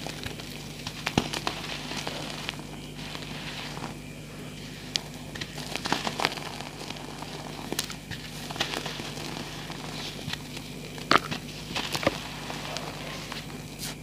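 Reformed gym chalk, made with gel, crushed and crumbled in bare hands: irregular crunchy crackles and snaps. The sharpest snap comes about eleven seconds in.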